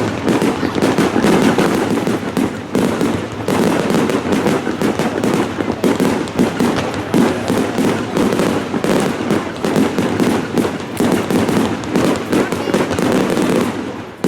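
Fireworks display: a dense, continuous barrage of bangs and crackles, many per second.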